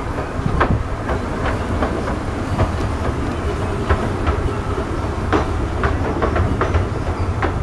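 Narrow-gauge passenger coaches of a 15-inch gauge steam train rolling past on the rails. There is a steady low rumble, and wheel clicks and clacks come several times a second as the wheels cross the rail joints.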